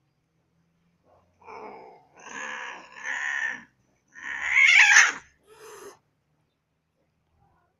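Domestic cat yowling in a run of about five drawn-out calls, the loudest one about four seconds in: the yowling of cats mating.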